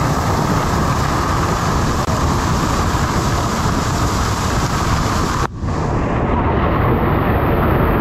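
Waterfall plunging onto rocks close by: a loud, steady rush of falling water. It drops out for an instant about five and a half seconds in, then carries on.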